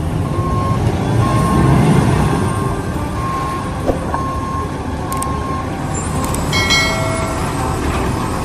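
Peterbilt concrete mixer truck running with a heavy diesel rumble as its reversing alarm beeps about once a second. A brief high squeal sounds about two-thirds of the way through.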